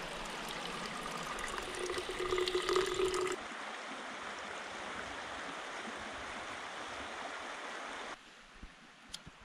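Stream water running steadily, with a brief steady tone over it that cuts off about three seconds in; the sound drops abruptly quieter near the end.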